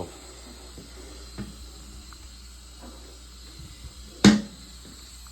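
A single loud, sharp knock about four seconds in, with a lighter knock earlier, over a faint steady hiss, as a toilet is being set back in place on its flange.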